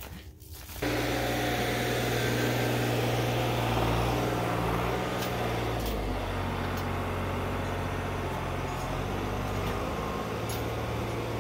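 New Holland TN70 tractor's diesel engine running steadily as the tractor works, cutting in abruptly just under a second in, its pitch shifting slightly now and then.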